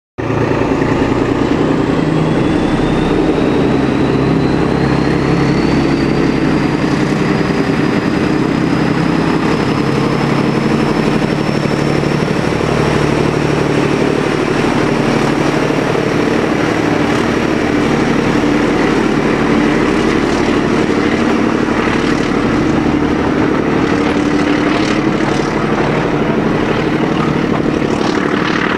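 Class 14 diesel-hydraulic locomotive D9531 running under full power on a climb, its Paxman diesel engine loud and steady, with a high whine rising in pitch over the first several seconds. Toward the end, wheels of the passing coaches clack over the rail joints.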